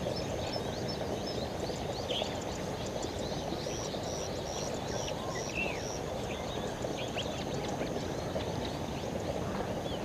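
Wetland ambience: a steady low hiss and rumble with scattered short, high chirps. A high pulsing note repeats about two to three times a second in a run in the middle of the stretch.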